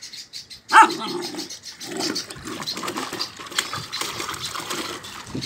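A puppy barks once about a second in, then water sloshes and splashes in a plastic tub as the puppy moves about in it.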